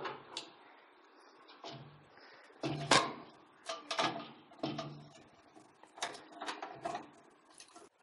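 Irregular clicks and knocks of computer hardware being handled inside a desktop PC case, metal and plastic parts bumping, with the loudest knock about three seconds in.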